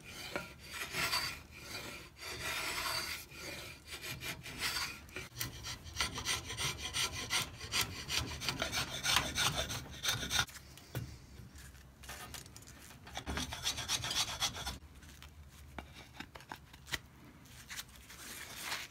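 A rasp worked quickly back and forth over a hickory axe handle, in rough scraping strokes that shave the wood. The strokes thin out and get quieter over the last few seconds.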